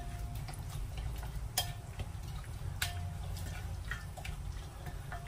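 A silicone spatula stirring a wet sauce mixture in a ceramic bowl, with a few sharp clinks against the bowl about a second or so apart. A steady low hum runs underneath.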